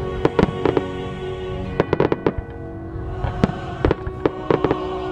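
Aerial firework shells bursting in a rapid, irregular series of sharp bangs, some coming in quick clusters of two or three, over music playing.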